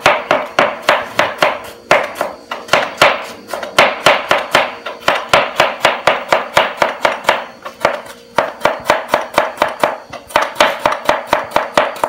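Kitchen knife chopping a carrot on a cutting board: quick, even knocks about four to five a second, pausing briefly twice.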